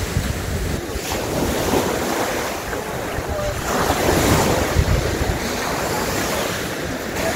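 Sea surf washing on the shore, with wind buffeting the microphone; the surf swells louder about four seconds in.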